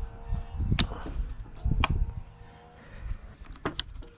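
Handling noise from the opened electric chainsaw: dull knocks and bumps with a few sharp clicks as its plastic and metal parts are moved about. The motor is not running.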